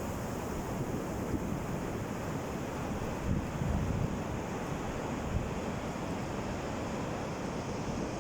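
Sea waves breaking and washing on a beach: a steady rush of surf that swells slightly a few seconds in, with wind on the microphone adding a low rumble.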